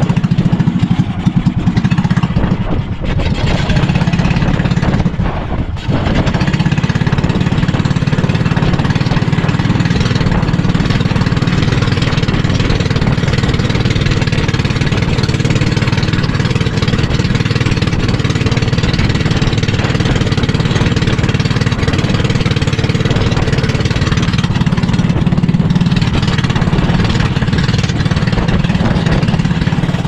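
Motorized outrigger boat's engine running steadily while the boat is underway, with a brief dip in level about five seconds in.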